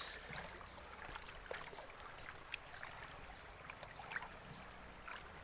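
Faint trickling and sloshing of water with scattered small clicks and splashes, as sand and gold concentrate are swirled and washed by hand.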